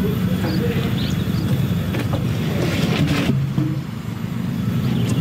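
A large engine running steadily with a low drone. About three seconds in a brief hiss cuts off sharply, and the engine dips for a moment before picking up again.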